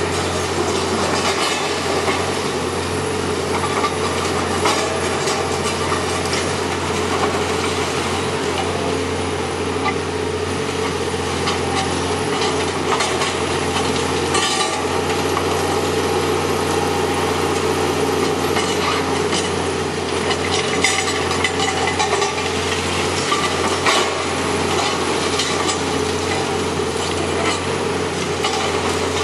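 Caterpillar hydraulic excavator's diesel engine running steadily under load while its arm works through the building, with the scraping, crunching and clatter of broken brick and debris and frequent sharper knocks.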